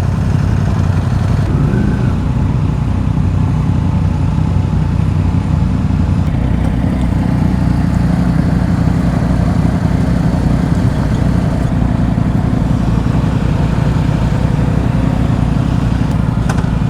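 Yamaha XSR 900's three-cylinder engine running steadily through a full Akrapovic exhaust, with a deep, bassy note.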